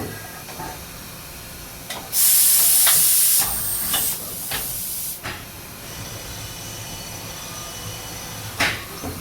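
Mazak Integrex 400-IV CNC lathe's automatic tool change: a loud hiss of compressed air about two seconds in, lasting just over a second, then a run of sharp clicks and clunks as the tool is swapped. A faint high steady whine follows, and there is another sharp click near the end.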